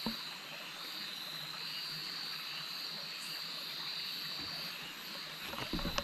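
Nocturnal rainforest chorus of insects and frogs: one unbroken high-pitched trill over a steady hiss. Brief handling noise near the end.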